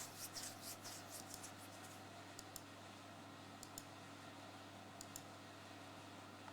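Faint typing on a computer keyboard: a quick run of key clicks over the first two seconds, then a few scattered pairs of clicks. A steady low hum sits underneath.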